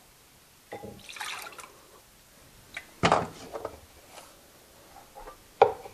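White vinegar poured from a plastic measuring cup into a mixing bowl, splashing briefly about a second in, followed by a few clunks and a sharp knock near the end as things are handled on the counter.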